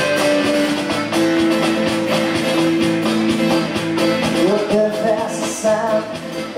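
Live folk-rock band playing an uptempo instrumental passage: accordion holding long notes over strummed acoustic guitar, electric guitar and cajón. A voice comes in about two-thirds of the way through.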